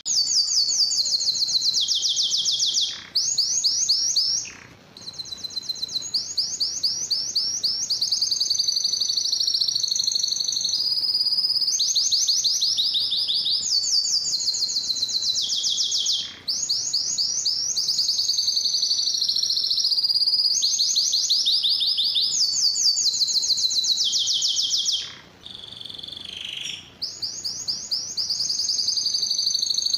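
Canary singing a continuous song of fast trilled rolls, each phrase a rapid string of high repeated notes, switching to a new phrase every second or two. The song breaks off briefly about 3, 16 and 25 seconds in.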